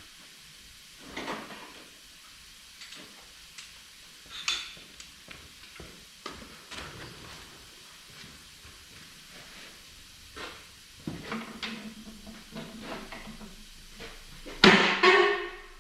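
Metal parts and hand tools clinking and knocking during work on a crusher, scattered light taps followed by a loud, ringing metal clank about a second before the end.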